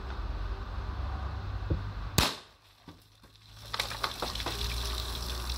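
A single sharp shot from a .43-calibre RAM gun firing a light PVC ball at 20 joules into a 2-litre water bottle, about two seconds in. From about four seconds in, water hisses and splatters as it pours out of the holed bottle onto gravel.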